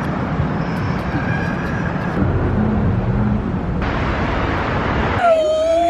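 Steady rush of city street traffic. About five seconds in it gives way to a siren starting to wail, its pitch slowly rising.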